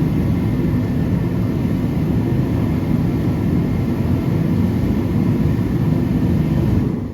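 Kerosene forced-air torpedo heater running steadily, a loud even rush of burner and fan, on a well-filled fuel tank. The sound cuts off quickly near the end.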